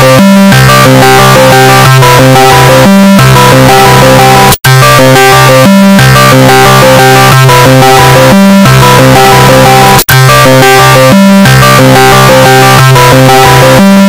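Discord call ringtone, blown out and distorted at full volume. Its synth jingle loops about every five and a half seconds, cutting out briefly between repeats twice.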